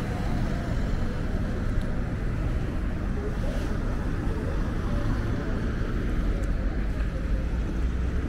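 City street traffic: cars driving past on the road, a steady low rumble of engines and tyres.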